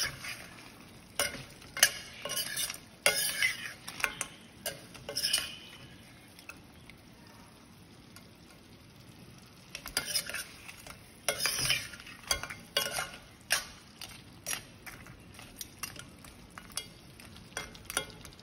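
Metal ladle scraping and clinking against a stainless steel kadai as a thick crab masala is stirred, over a low sizzle from the pan. The scrapes come in irregular bursts, with a lull in the middle.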